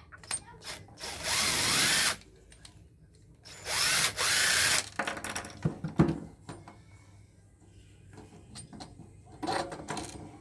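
Cordless drill running in two short bursts, each about a second, driving screws out of electrical connectors during a teardown. Between and after the bursts come small clicks and knocks of parts being handled and dropped, with one sharp knock about six seconds in.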